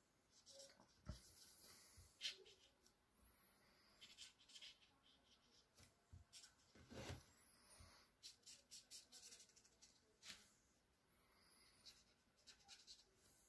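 Faint scratching of a black felt-tip pen on paper, made in quick short hatching strokes that come in runs with short pauses between them.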